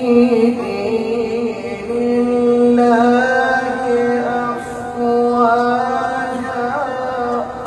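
A man reciting the Qur'an in the melodic tilawah style, holding long drawn-out notes, with a run of quick ornamental turns about three seconds in.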